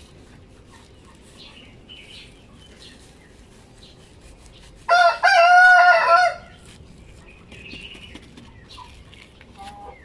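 A shamo rooster crows once, loudly, about five seconds in, the call lasting a little over a second. Faint clucks and chirps from other chickens can be heard around it.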